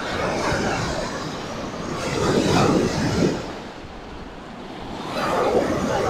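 Wind rumbling on the microphone over waves washing on the lakeshore, swelling up about two seconds in and again near the end.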